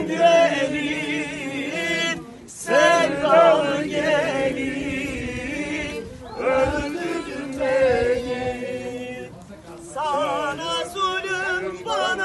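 A group of men and women singing together without instruments, in phrases with short breaks between them.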